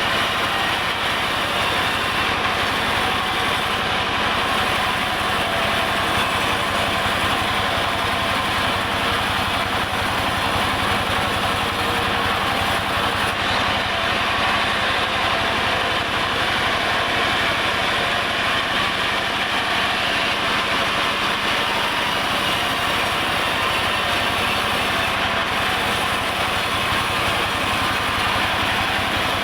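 Sawmill saw and its drive engine running steadily, a constant mechanical hum under a dense high noise with no pauses or changes.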